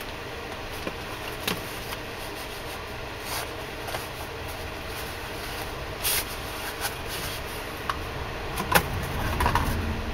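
Scattered clicks and rustles from a knife and its Kydex sheath being handled and unwrapped, over a steady background hum; the handling noise grows busier near the end.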